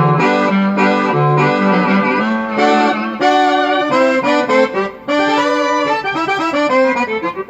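Banda-style sample played on a synthesizer keyboard: a continuous ensemble phrase of chords and moving melody notes in an accordion and brass sound, with a brief break about five seconds in.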